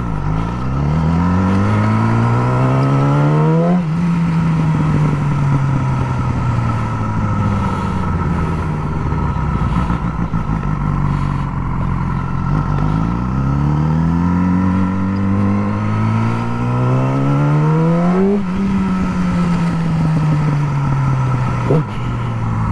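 Yamaha R6 inline-four sport bike with a Graves slip-on exhaust, heard from the rider's seat. It revs up hard and then winds down slowly as the throttle rolls off, twice. There is a single sharp click near the end.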